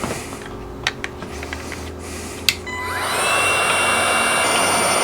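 A few light handling clicks, then the click of a switch and a DeWalt cordless heat gun starting: its fan-motor whine rises in pitch about two and a half seconds in and settles into steady running with a rush of blown air.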